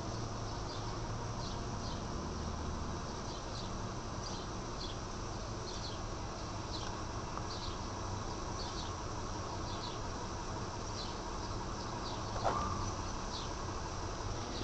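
Insects chirping in short, high, repeated chirps about every half second, over a steady low hum. A single brief falling call sounds near the end.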